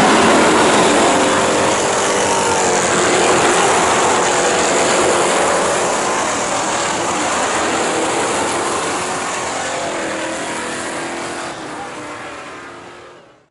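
Several stock race cars' engines running around a dirt oval track, with pitch rising and falling as cars pass and accelerate. The sound eases off gradually and then fades out near the end.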